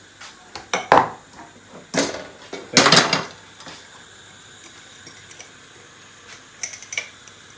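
Kitchen clatter of utensils and dishes knocking together: a few sharp clanks in the first three seconds, the last one the loudest and longest, then a few light clicks near the end.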